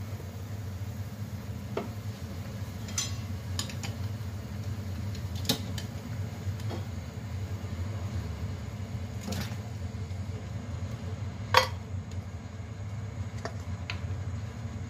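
Chopsticks clicking and clinking against a saucepan and a steel bowl while meat is lifted out of boiling water, about nine sharp knocks with the loudest, ringing one about eleven seconds in. Under them runs the steady low rumble of the gas burner and the pot at the boil.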